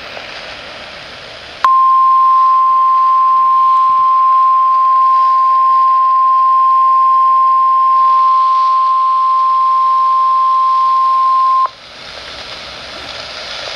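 NOAA Weather Radio warning alarm tone: a single steady 1050 Hz tone held for about ten seconds, starting abruptly about two seconds in and cutting off sharply, sounded as a weekly test of the receivers' alarm. Radio hiss comes before and after it.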